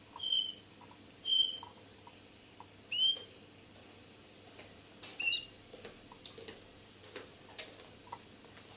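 Small caged finch giving short, clear call notes, four in all, one of them sliding up in pitch. Light taps and wing flutters sound in between as it hops between the perches of a small wooden cage.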